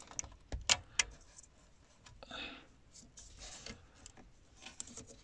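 Plastic wiring plug being pulled out of the back of a Ford 6000CD car radio: a few sharp clicks about a second in as it comes loose, then quieter rustling of the cables and the plastic plug being handled.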